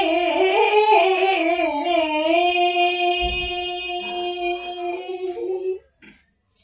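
Elderly woman singing a classical vocal line unaccompanied, her pitch wavering in ornaments, then holding one long note that ends about six seconds in.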